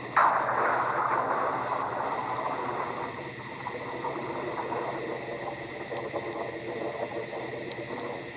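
A thunderclap breaks sharply just after the start, then rumbles and fades away over several seconds, over a steady hiss of rain.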